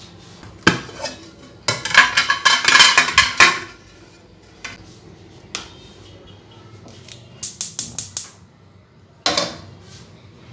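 Kitchen dishes, pots and utensils clattering and knocking as they are handled: a single knock, then a long run of dense clatter from about two seconds in, a quick string of sharp clicks around eight seconds in, and a heavier knock near the end.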